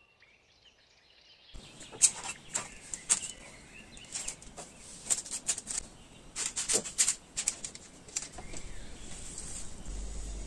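Parchment paper crackling and rustling as soft shaped dough logs are handled and set down on a parchment-lined baking tray, in a quick run of irregular sharp crackles and light taps, easing to a softer rustle near the end.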